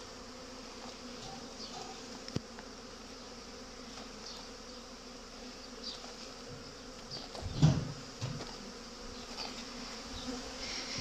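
Honeybees buzzing as they fly in and out at hive entrances, a steady busy hum of foragers bringing in pollen. A short louder burst comes about seven and a half seconds in.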